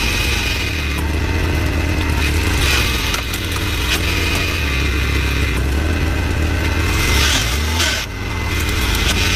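The engine of a hydraulic log splitter running steadily while its multi-blade wedge head is forced down through a log, with the wood scraping and cracking as it splits into pieces.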